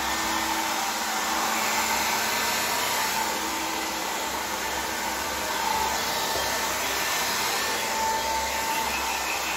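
Small handheld hair dryer running steadily, blowing air onto a wet dog's coat after a bath: an even rush of air with a faint motor whine.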